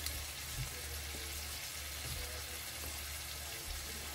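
Shrimp sizzling steadily in melted butter in a cast-iron skillet over a gas burner turned up high, with a low steady hum underneath.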